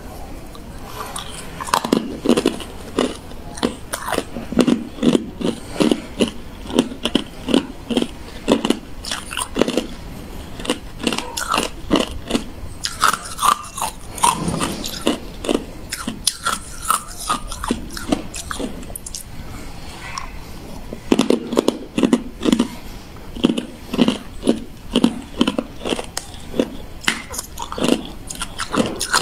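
Hard ice cubes coated in matcha powder being bitten and chewed, a fast run of crisp crunches, several a second, broken by a couple of short pauses.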